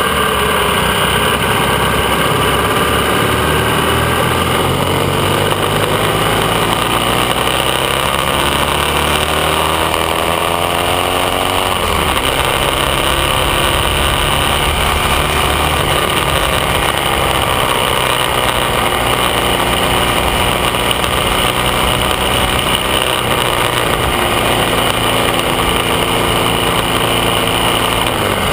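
AJS 650 CSR parallel-twin engine pulling along the road, heard from the rider's position with wind rush. The revs climb slowly and drop sharply about twelve seconds in, and again near the end.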